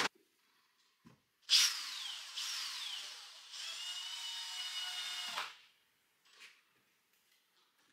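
Cordless drill run against a stone wall: its motor whine drops in pitch twice, as if slowing under load, then holds steady for about two seconds before it stops. A sharp click comes at the very start.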